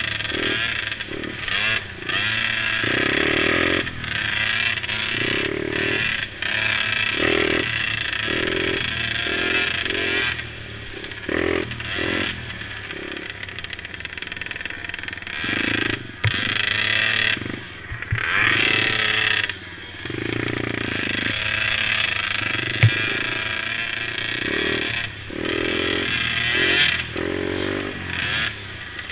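Mini quad engines racing, the engine note rising and falling in pitch as the throttle opens and closes, with frequent short dips in loudness.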